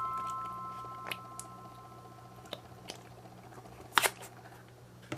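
A chime-like note fading out, then faint scattered clicks and soft squishes, with one sharper click about four seconds in.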